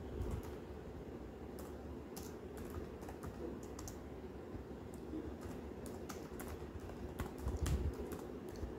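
Faint typing on a computer keyboard: irregular, scattered key clicks as words are typed.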